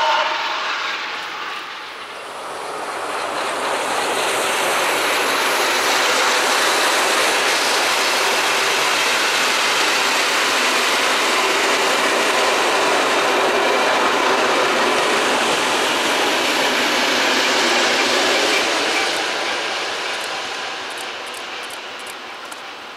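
ČSD class 477.0 'Papoušek' steam locomotive 477.043 passing with its train: a loud rush of steam exhaust and rolling wheels. It builds about two seconds in, holds steady, then fades away over the last few seconds.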